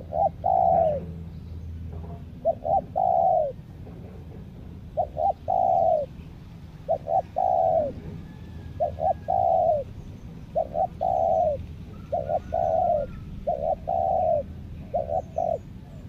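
Spotted dove cooing its song over and over, about eight phrases, each two short notes followed by a longer falling coo, coming a little faster near the end. Faint chirps of other birds sit beneath.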